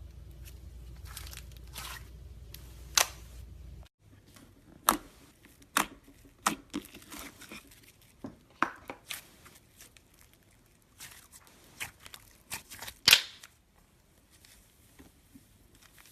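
Clear slime mixed with gold foil being squeezed and stretched by hand, giving a string of sharp, irregular crackles and pops, the loudest about three-quarters of the way through.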